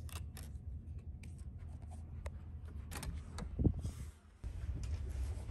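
Clicks and taps of a keycard going into a cabin door's electronic card lock, with a heavy thud about three and a half seconds in, over a steady low hum of the ferry.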